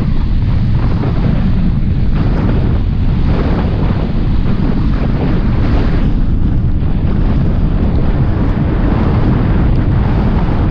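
Wind rumbling steadily on the microphone of a camera mounted outside a moving car, mixed with road noise from the car driving on wet tarmac.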